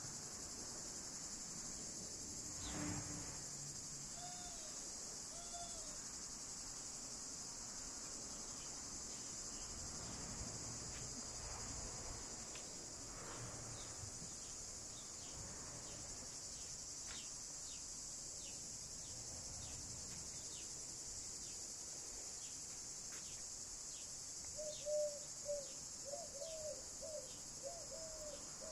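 A steady high insect chorus with scattered short bird chirps throughout. Near the end, a bird gives a quick run of short, low calls.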